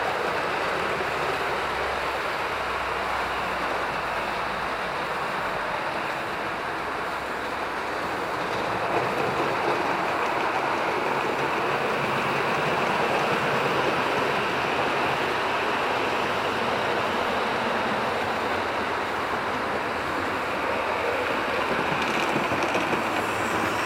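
Model trains running on the layout: a steady rumble and whir of small wheels on rail and electric motors, with a few faint clicks near the end as a train nears.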